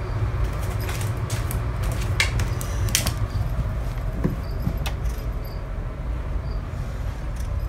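A steady low hum with scattered sharp clicks and scrapes over the first three seconds, as of animal claws scrabbling on a tile floor.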